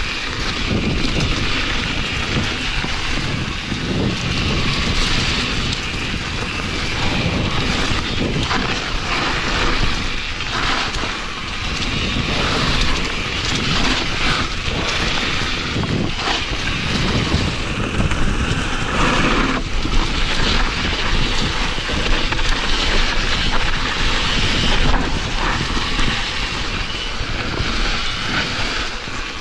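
Mountain bike descending a dirt singletrack: wind buffeting the rider's camera microphone over tyre noise on dirt and frequent knocks and rattles from the bike over bumps.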